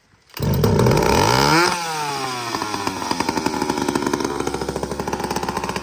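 An old McCulloch Pro Mac 700 two-stroke chainsaw fires up suddenly and runs loud at high revs, then drops back to a steady idle about a second and a half later.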